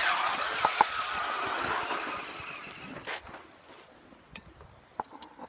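Electric RC truck's motor and gears whining at full speed, with two sharp ticks just under a second in; the whine fades away over the next few seconds.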